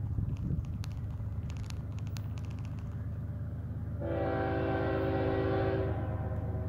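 Diesel freight locomotive rumbling, then sounding its air horn in one blast of about two seconds, a chord of several tones, starting about four seconds in.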